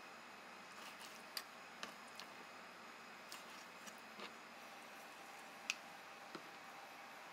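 Kitchen knife cutting raw squid tentacles on a plastic cutting board: faint, scattered ticks of the blade meeting the board over a low hiss, the sharpest one a little under six seconds in.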